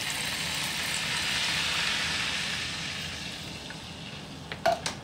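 Beef broth poured into a hot frying pan of leftover butter, oil and beef fat, deglazing it: a loud hiss and sizzle as the liquid hits, strongest in the first two seconds and fading away. A couple of short knocks near the end.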